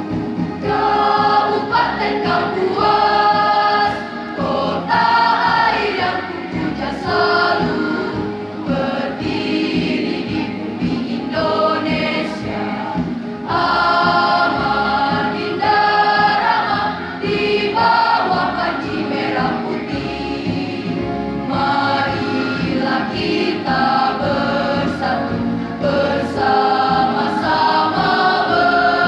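School choir of mostly girls' voices singing a march in unison phrases, accompanied by an electronic keyboard played through amplifier speakers.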